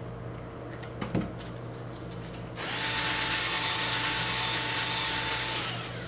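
Cordless screwdriver-drill with a fan shaft clamped in its chuck, a light click about a second in, then the motor spinning at a steady pitch for about three seconds before stopping.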